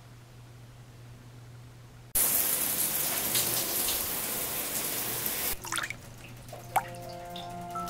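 Shower spray from a wall-mounted showerhead comes on suddenly about two seconds in, runs steadily for about three and a half seconds and then cuts off, leaving scattered drips.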